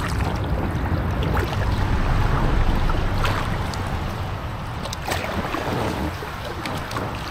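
Kayak paddle strokes in calm canal water, the blade dipping and splashing every couple of seconds over a steady low rumble.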